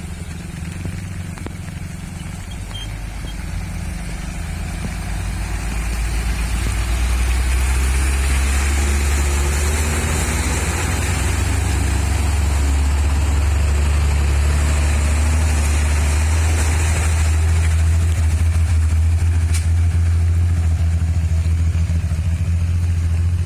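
Hino dump truck's diesel engine running under load, growing louder over a few seconds about five seconds in, then holding steady.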